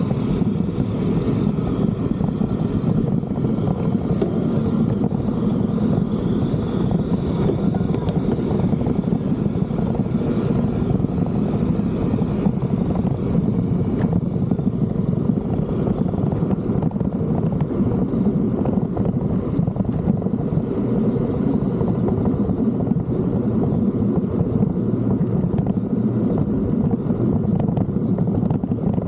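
Steady wind rushing over an action camera's microphone on a moving bicycle: a constant low rumble with no breaks.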